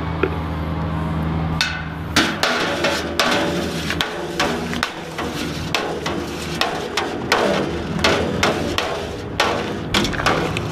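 Long metal spoon knocking and scraping against the liquid malt extract container and the rim of a stainless brew pot: a quick, irregular run of sharp clacks that starts about two seconds in.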